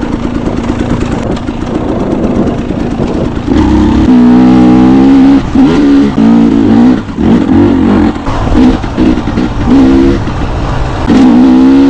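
Dirt bike engine revving up and backing off in repeated bursts as the throttle is opened and closed. It runs quieter and steadier for the first few seconds, then louder from about four seconds in.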